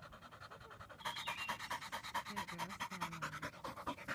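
Yellow Labrador retriever panting rapidly in quick, even breaths, louder from about a second in.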